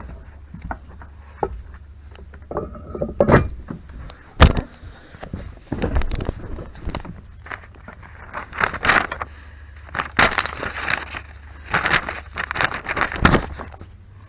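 Car running with a steady low rumble, with a couple of sharp knocks and several bursts of scraping, rustling noise.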